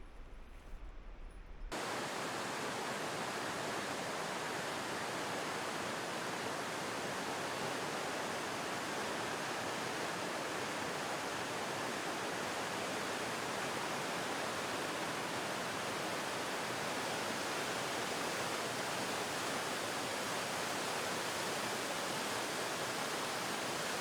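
Baileys Chute waterfall on the Clearwater River: a steady, even rush of falling and churning water that cuts in abruptly about two seconds in and holds constant.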